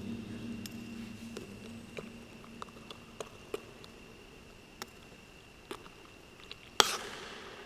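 Small clicks, taps and knocks of metal camp cooking gear being handled, echoing off the concrete walls of a bunker, with one louder knock near the end.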